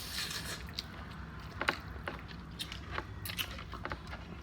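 Eating sounds close to the microphone: chewing and biting, with scattered small clicks and crackles.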